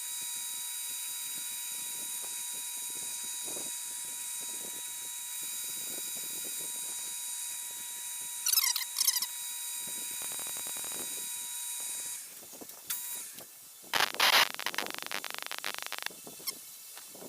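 Metal lathe running steadily with a hiss and a thin whine while taking a threading pass. It stops about twelve seconds in, followed by a burst of clicking and clattering. A couple of short squeaky chirps come around the middle.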